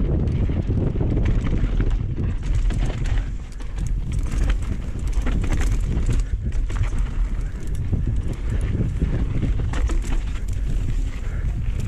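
Mountain bike being ridden fast down a dirt jump trail: wind rushing over the microphone, with frequent rattles and knocks from the bike over rough ground.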